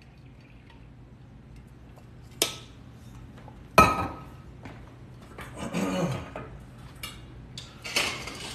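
Kitchen clatter of dishes and metal prep bowls being knocked and set down on a counter: a few separate sharp knocks, the loudest about four seconds in, and a clink near the end that rings briefly.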